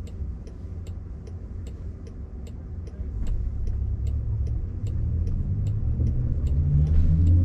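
Turn-signal indicator ticking about two and a half times a second inside a Waymo Jaguar I-Pace waiting to turn left. From about three seconds in, a low rumble of road and tyre noise rises as the car pulls away into the turn.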